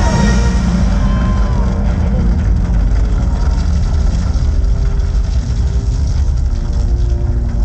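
Show soundtrack over loudspeakers: a deep, steady rumbling drone with faint held notes. A falling swoop fades out about two seconds in.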